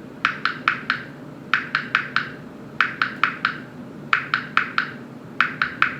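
Metal jar lid's pop-up safety button pressed in and out with a finger, the lid cupped in the hand, imitating frogs croaking. It gives bright clicks in quick groups of four, a group about every second and a quarter.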